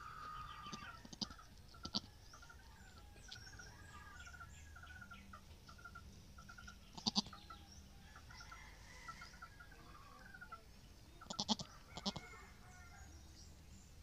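Faint goat sounds from a nanny goat and her newborn kid as she licks and nuzzles it: a few short, sudden outbursts about a second in, near the middle and near the end, over faint chirping.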